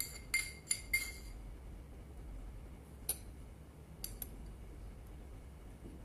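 Metal spoon clinking against a glass baking dish and a bowl while toppings are spooned out: four quick ringing clinks in the first second, one more about three seconds in, and two close together about four seconds in.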